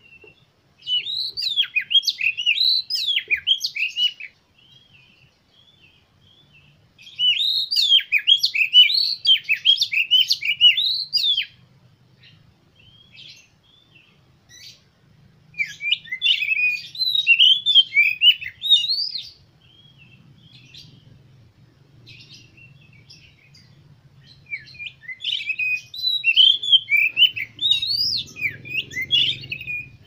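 Oriental magpie-robin singing in four bouts of quick, varied whistled phrases, each a few seconds long, with short pauses between.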